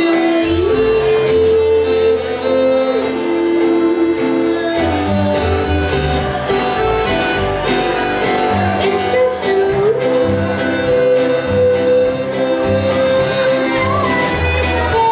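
Live acoustic folk band playing: upright bass, acoustic guitar, accordion and a small drum kit, with a melody of long held notes that slide up or down between them and regular light drum and cymbal strikes.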